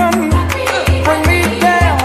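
Background music: upbeat Latin dance music with a bass line that changes note about every half second under a sliding melody.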